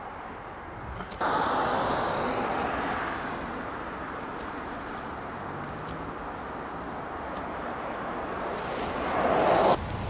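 Outdoor street ambience of passing road vehicles, their tyres hissing on a wet, snow-covered road. One fades away over the first few seconds after a sudden jump in level; another comes closer near the end and cuts off suddenly.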